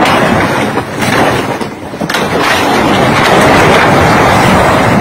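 Brick building under construction collapsing: masonry and concrete crashing down in a loud, continuous rumble that starts abruptly and swells again about two seconds in. Onlookers blame the collapse on two weak front pillars.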